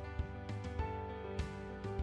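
Background music with held notes over a steady beat of about two strikes a second.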